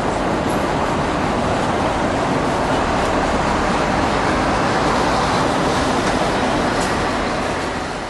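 Steady city street noise with traffic, an even din that begins to fade out near the end.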